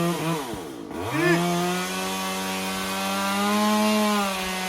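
Small two-stroke chainsaw engine running at high revs while trimming a mango tree; about half a second in the revs fall away sharply and climb straight back up, then hold steady.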